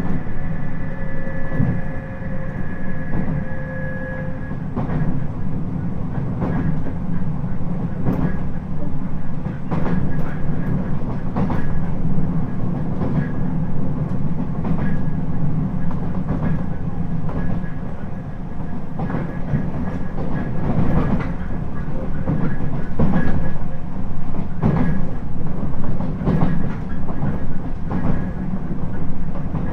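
Interior running sound of a JR 719 series electric multiple unit: a steady low rumble with rail-joint clicks coming every second or so. A high whine from the train fades out about four seconds in.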